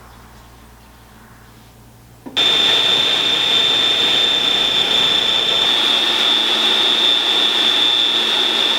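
Food processor motor switched on about two seconds in and running at steady speed with a high whine, pureeing roasted pumpkin, onion, garlic, ginger and cream into a smooth soup; it stops right at the end.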